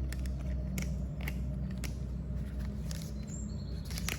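Handling of a tool pouch and its metal carabiner: several short, light clicks spaced irregularly over a steady low hum.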